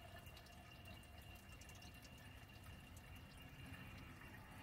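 Faint trickle of water poured from a plastic jug into a car radiator's filler neck, with light dripping as water leaks out through fan-nicked holes in the radiator core.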